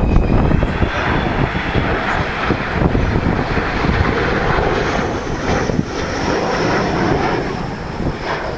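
Avro Vulcan bomber's four Rolls-Royce Olympus turbojets, a loud, steady jet roar as the aircraft banks low overhead, with a faint high whine coming in about halfway through.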